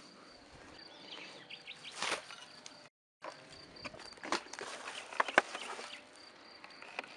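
Rustling and crackling of a plastic trash bag being handled among dry twigs and leaves, with scattered sharp crackles and footsteps in the undergrowth. The sound cuts out for a moment about three seconds in.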